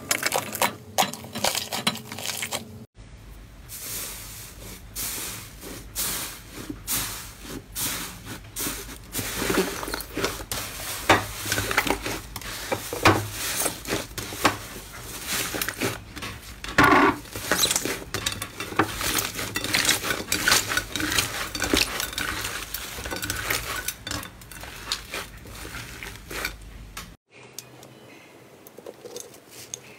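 Slime being squeezed and kneaded by hand, a dense run of irregular sticky clicks and crackles as air pockets pop. The sound changes abruptly about three seconds in and again near the end as one clip gives way to the next.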